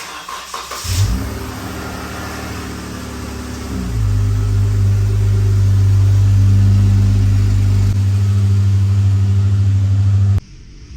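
2013 Jeep Wrangler JK's 3.6-litre V6 engine starting and running. About four seconds in its note steps up and grows louder, holds steady, and stops abruptly near the end.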